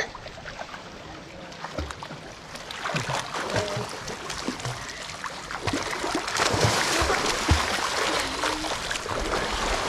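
Swimming-pool water splashing and sloshing as children swim and thrash about, quieter at first and growing louder and busier over the last few seconds.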